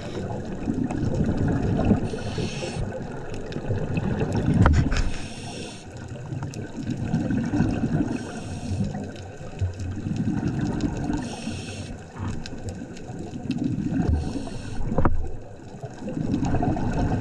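Scuba diver's regulator breathing underwater. A short hiss comes about every three seconds, with low rumbling exhaust bubbles between, and two sharp clicks.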